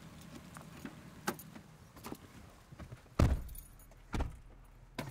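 Getting into a truck: scattered light clicks and jangling of keys, then a heavier thud about three seconds in and a smaller one about a second later.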